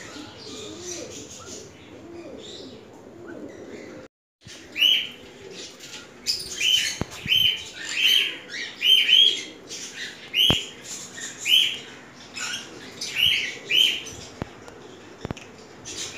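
Caged birds calling in an aviary. At first there are low, soft, repeated calls. After a brief break comes a run of loud, short, shrill calls about once or twice a second, with a few sharp clicks among them.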